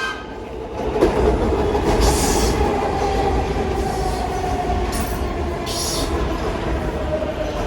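Steady low rumble and noise under a drawn-out squeal that slowly falls in pitch, with a few short hissing bursts.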